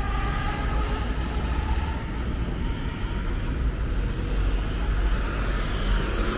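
A motor vehicle passing close by on a city street: a steady low rumble with a faint whine above it.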